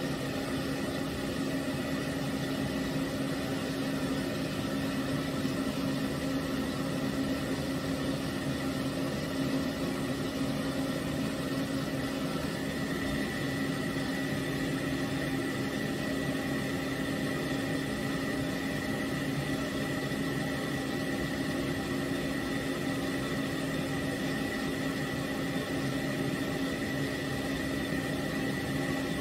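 Pet grooming stand dryer running steadily: a constant fan-and-motor whir with a steady low hum. A thin high whine grows stronger about halfway through.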